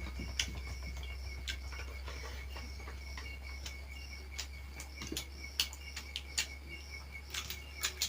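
High chirping pulsing at an even rhythm, about three times a second, over a steady high tone and a low hum, with scattered sharp clicks.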